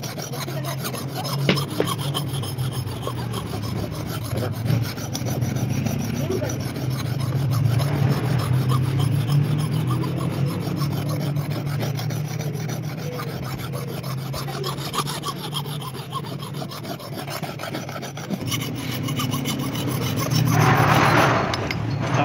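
Flat steel hand file rasping back and forth across the edge of a dull steel axe head, sharpening the bit, with a steady low hum underneath. The scraping grows louder for a moment near the end.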